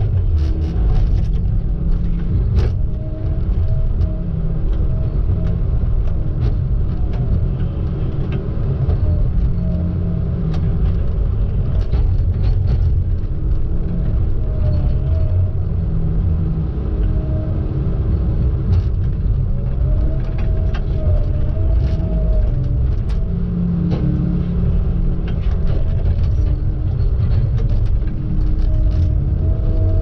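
Tigercat T234 knuckleboom log loader working, heard from its cab: a steady heavy engine rumble, with a whine that rises and falls in pitch as the boom swings and the grapple handles pine logs. Scattered knocks and clunks run through it, one sharper knock about three seconds in.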